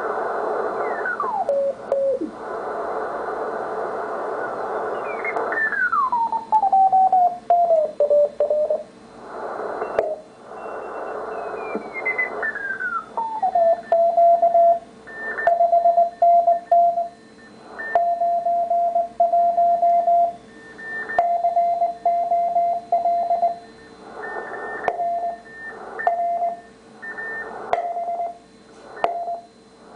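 Ten-Tec T1380 QRP transceiver tuning across the 80-metre band: hiss of band noise and tones that slide down in pitch as the dial passes Morse signals, then settling on a CW station whose steady tone keys on and off in Morse code for the second half.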